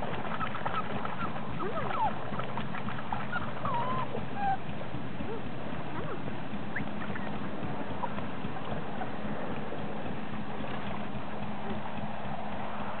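Shallow water sloshing as a black Labrador puppy swims and a person wades beside it, with a few short whimpers from the puppy in the first few seconds.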